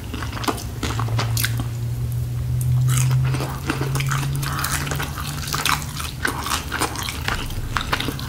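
Close-miked eating: wet chewing, lip smacks and mouth clicks from someone eating grilled barbecue chicken thigh. A low, steady hum runs underneath and is strongest in the middle.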